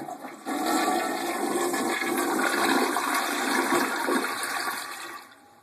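Toilet flushing: a loud rush of water swirling down the bowl, starting about half a second in and fading near the end.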